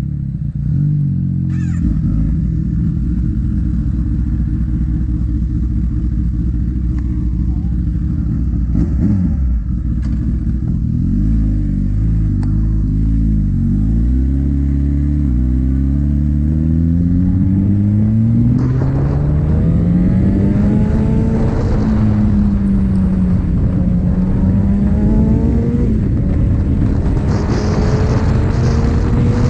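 Motorcycle engine under way, the pitch stepping up and down with gear changes and then climbing and wavering with the throttle.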